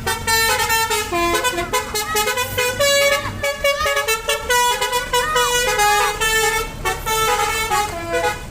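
Bus 'telolet' multi-tone air horn playing a quick melody of short, stepped notes, with a low rumble under the first few seconds.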